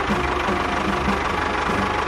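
Small motor of a DIY model tractor running steadily, with a regular pulsing beat.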